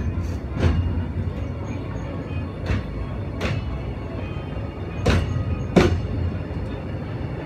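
Steady rumble of a carriage rolling behind a steam locomotive, broken by a few sharp clacks, several in pairs under a second apart, as the wheels cross rail joints.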